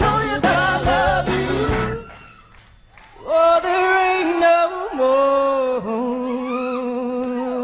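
Live band playing, then breaking off about two seconds in. After a short pause, a solo voice sings long held notes that step down in pitch.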